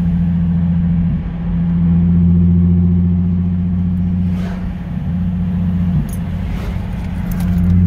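Nissan 350Z's V6 engine and road noise droning steadily while driving, heard from inside the cabin, with brief dips in level about a second in and near six seconds.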